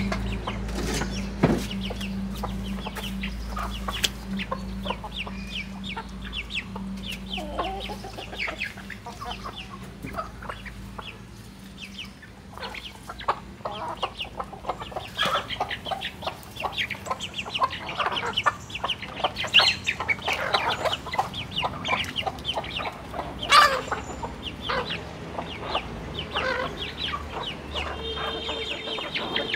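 Chickens clucking as they feed, with many short calls and quick sharp ticks. A low steady hum fades out about halfway through.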